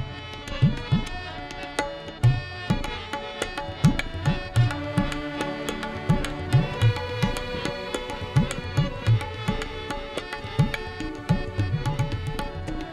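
Instrumental interlude of a ghazal: tabla playing a steady rhythm, its deep bayan strokes sliding in pitch, under a bowed sarangi melody with harmonium.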